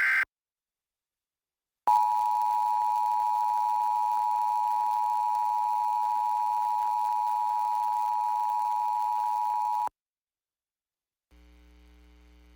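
Emergency Alert System attention signal: two steady tones at 853 and 960 Hz sounded together for about eight seconds, starting about two seconds in and cutting off sharply. Just before it, the last burst of the warbling SAME header data tones ends, and after it a faint low hum comes in near the end.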